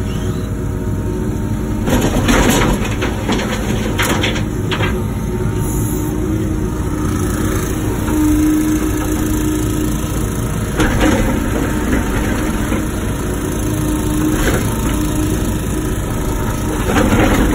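Wacker Neuson ET145 excavator's diesel engine running steadily under load. A few short bursts of scraping and clunking come over it as the bucket works dirt and rock.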